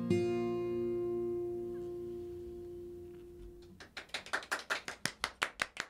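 Acoustic guitar's last strummed chord ringing out and slowly fading at the end of a song, followed about four seconds in by a short run of quick hand claps.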